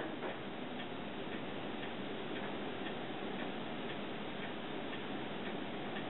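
Steady rushing noise of typhoon rain and wind coming through an open screen door, with faint, regular ticks about twice a second.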